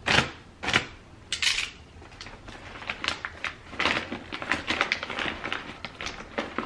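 A rolled-up white packet being unrolled and pulled open by hand: crinkling and rustling, with three sharp crackles in the first second and a half, then a run of smaller crackles.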